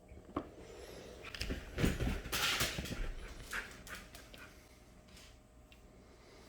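A dog making a cluster of short, noisy sounds and scuffles, loudest about two seconds in and dying away after about four seconds.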